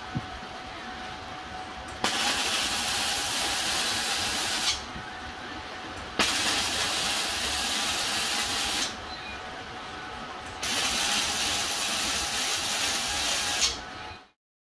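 Electric arc welding with a Titanium Unlimited 200 welder: three bursts of crackling, hissing arc, each about two and a half to three seconds long, each starting sharply, with quieter pauses between them.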